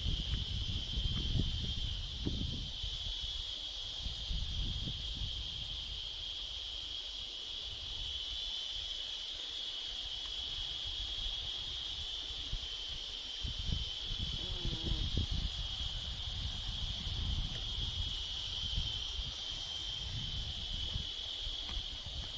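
Insects, crickets or cicadas, singing in one steady, unbroken high-pitched drone, with an uneven low rumble on the microphone underneath.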